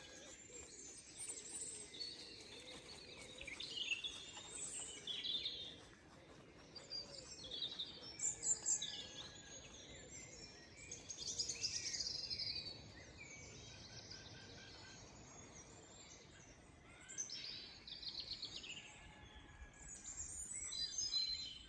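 A chorus of songbirds singing, with many short, varied, overlapping phrases, loudest about eight to twelve seconds in.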